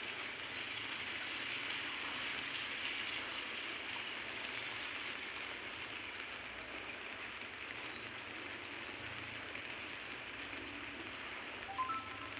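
Steady hiss of light rain. Near the end comes a short call of three quick notes, each higher than the last.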